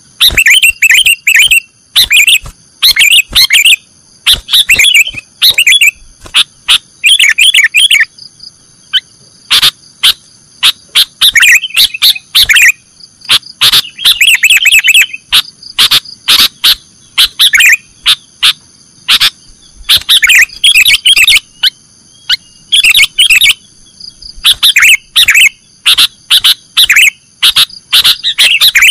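Sooty-headed bulbul (kutilang) singing its full 'nggaruda' song: loud phrases of quick chirping notes, each about a second long, repeated again and again with short pauses between.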